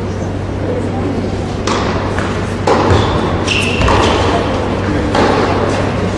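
Tennis ball being hit back and forth in a rally on an indoor hard court: sharp racquet strikes and bounces about a second apart, each echoing through the hall, starting a little under two seconds in. A short high squeak comes about three and a half seconds in.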